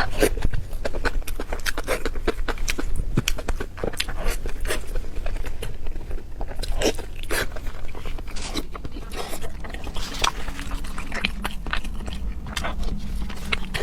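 Close-miked mukbang eating: wet chewing and lip-smacking, with many irregular clicks and squelches, as a mouthful of pig intestine stuffed with pig brain is eaten.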